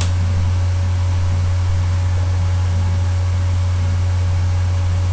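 Westinghouse Portatape reel-to-reel tape recorder running on test playback through an external speaker, giving a loud, steady low hum with faint hiss and no audible programme.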